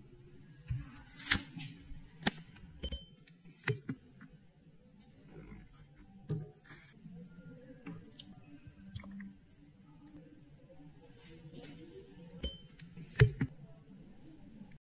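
Metal spoon clinking against a glass jar as chunks of quince jam in syrup are spooned in: scattered sharp clinks, the loudest near the end, over a faint low hum.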